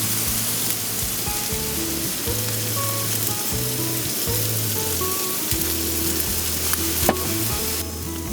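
Chicken sizzling steadily as it fries in a pan, with a single light click about seven seconds in.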